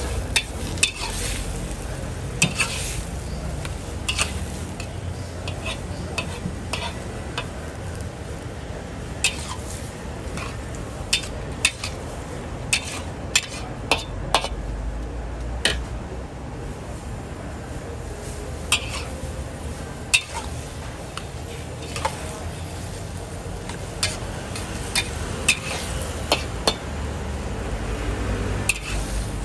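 Metal spatula scraping and clinking against a wok as cabbage and flat rice noodles are stir-fried, with sharp irregular clinks every second or so over a steady sizzle.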